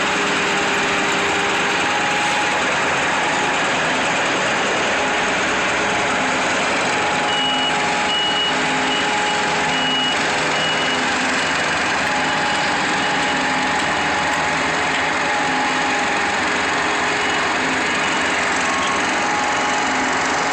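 Diesel engines of asphalt paving machinery running steadily. A reversing alarm beeps in even pulses for a few seconds near the middle.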